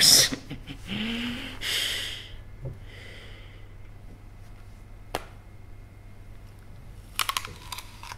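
Quiet room with a steady low hum and a single sharp click about five seconds in; near the end, a few crisp cracks of teeth biting into an apple.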